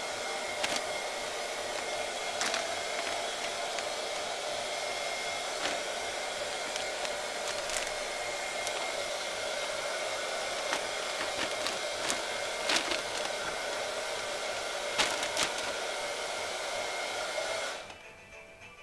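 A steady blower-like whoosh with a faint hum, which cuts off suddenly near the end. Over it come scattered sharp crinkles of a thin plastic carrier bag as a cat plays inside it and a hand pulls at it.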